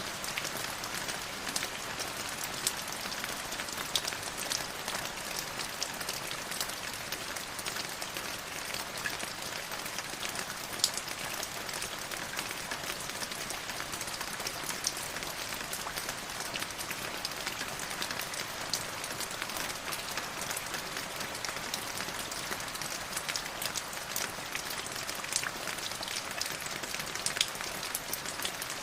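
River water flowing steadily, a continuous rushing with many small splashes and drips scattered through it.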